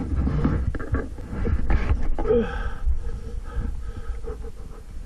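Dirt bike engine running at low revs over rough ground, with frequent knocks and clatter from the wheels and suspension hitting rocks and roots.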